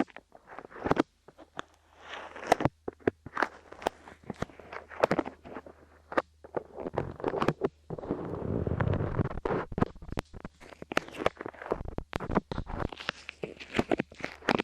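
Light clay being pressed, squished and pulled on a microphone's ears, giving close, sticky crackling and clicking with a denser muffled rustle about halfway through.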